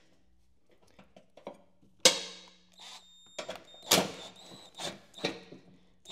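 Steel socket and extension clinking and knocking against the mower deck's belt guide and bolt while the bolt is being tightened. After about two seconds there is a run of sharp metallic knocks, one of them ringing briefly.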